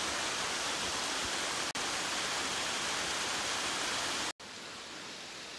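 Steady rush of a shallow creek flowing over riffles, with a small waterfall spilling down a rock ledge. About four seconds in, the sound cuts off abruptly and resumes quieter.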